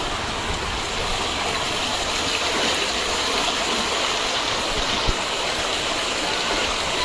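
Heavy rain and running water making a steady rushing hiss, with a single short knock about five seconds in.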